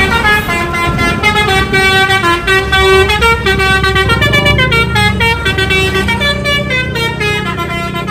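Indonesian bus's Basuri telolet horn playing a quick tune: several horn tones at once stepping up and down in pitch, with no break.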